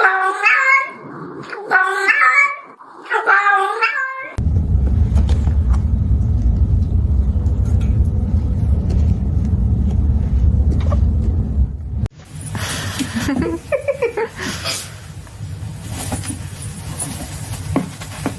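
A cat meowing: three long, wavering yowls in the first four seconds. A loud, steady low rumble follows for about eight seconds and stops abruptly, giving way to a different, noisier scene.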